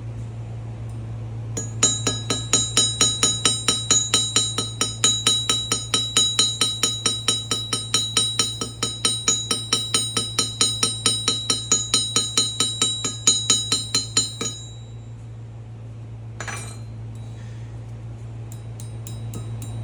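Rapid, evenly spaced clinking strikes, about four a second, each ringing briefly at a high pitch. They start a couple of seconds in and stop about three-quarters of the way through, over a steady low hum.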